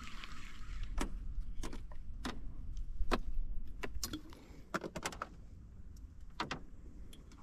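About fifteen irregular sharp clicks and knocks, a few close together in quick runs, from fishing gear and a hooked fish being handled in a small boat, over a low rumble that fades away about halfway through.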